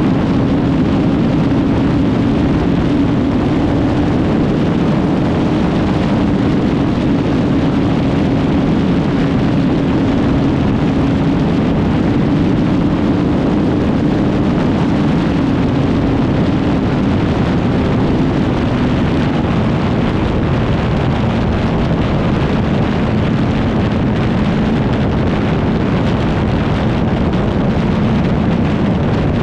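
Kawasaki Z1000 R's inline-four engine running at high motorway speed, with heavy wind rush on the microphone. The engine note holds high for the first half as the bike speeds up, then drops a little past halfway as it slows.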